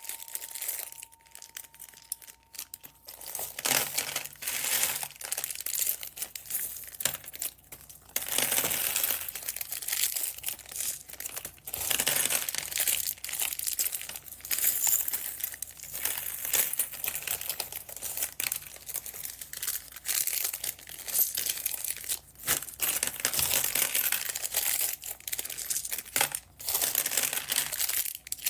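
Plastic packaging bags crinkling as they are handled and opened, scattered at first and near-continuous from about eight seconds in.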